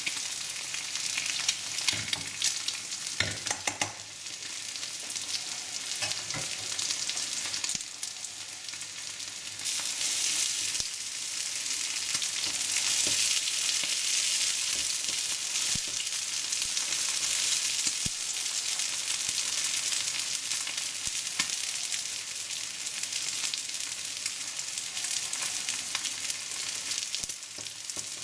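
Bubble and squeak potato cakes and an egg sizzling in hot vegetable oil in a frying pan, with a few sharp clicks. The sizzle gets louder about ten seconds in.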